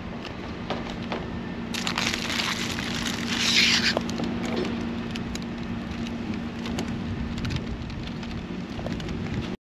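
Outdoor street ambience: a steady low hum under a background of noise, with scattered small clicks and knocks and a brief hiss about three and a half seconds in.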